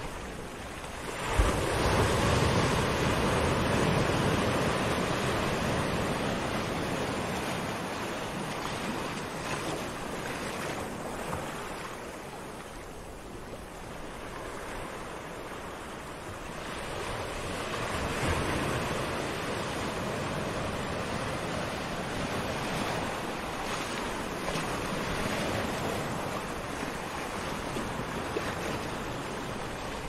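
Gentle surf: small waves washing onto a sandy shore, swelling about a second in, easing off around the middle, and building again after.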